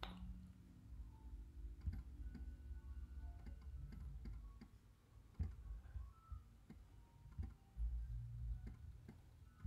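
Faint, scattered clicks of a computer mouse being clicked and scrolled, over a low rumble.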